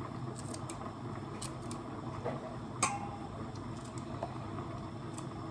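Knife cutting okra pods: light, irregular clicks and taps, about ten of them, the sharpest with a brief ring near the middle, over a steady low background hum.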